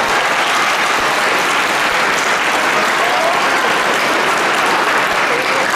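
Crowd of spectators applauding steadily at the end of a point in a badminton game.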